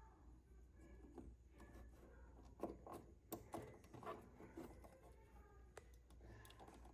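Near silence with faint scattered clicks and rubbing: hands pressing a plastic relay onto its wiring connector on a motorcycle, trying to clip it in.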